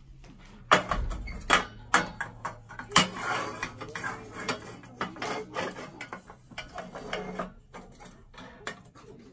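A round metal grill plate being set down and shifted on a Campmaster portable gas stove: a run of metallic clanks and scrapes, the sharpest about a second in and about three seconds in.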